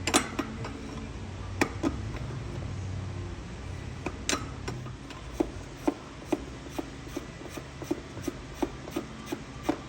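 Hand tools working engine bolts: a few sharp metal knocks, then a regular clicking about twice a second from about halfway in, typical of a ratchet wrench backing out a bolt.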